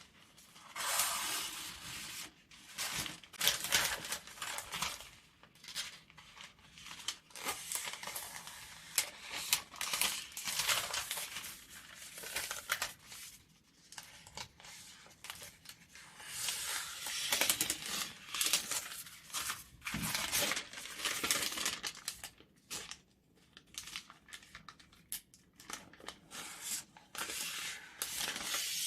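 Scissors slicing through sheets of paper and plastic film, each cut made as one long gliding stroke of the blades. The cuts come one after another with short pauses between them.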